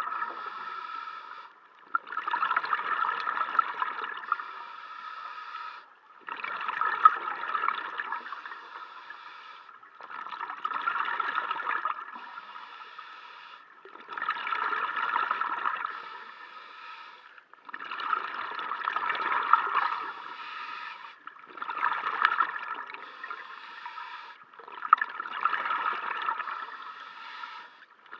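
A scuba diver breathing underwater through a regulator: a rush of exhaled bubbles about every four seconds, each followed by a quieter stretch, seven breaths in all.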